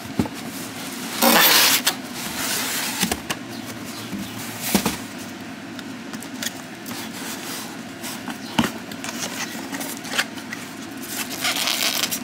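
Cardboard packaging being handled: scraping and rustling against the sides of a large shipping box, with a loud burst of scraping about a second in and scattered knocks after it.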